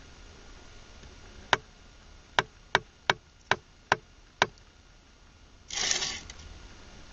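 A hammer taps a concrete block seven times in quick, sharp strikes, knocking it down to level in its course. About six seconds in there is a short scrape as a plastic level is set on top of the block.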